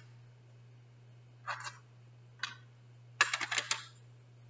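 Letter cards being set into a blue plastic card holder: light clicks and taps, one about a second and a half in, another a second later, and a quick cluster of several clicks a little past three seconds in.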